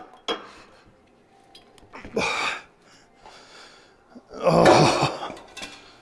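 A man's effortful breath about two seconds in and a louder grunt near five seconds as he climbs up onto a truck's engine, with a couple of sharp knocks at the start.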